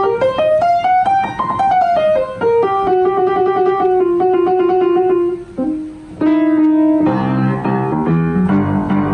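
Piano music: a melody of single notes climbs for about a second and a half, then steps back down, and about seven seconds in fuller, lower chords come in.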